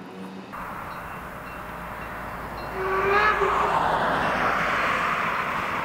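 Narrow-gauge steam locomotive's whistle: one short blast about three seconds in, followed by a steady rushing noise.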